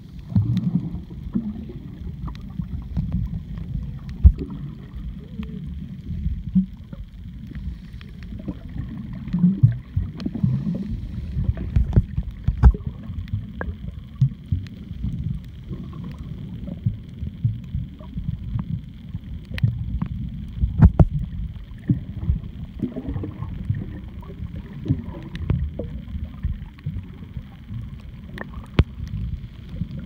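Underwater sound picked up by a camera held below the surface while snorkelling: a low rumble of water moving around the camera, with scattered sharp clicks and knocks.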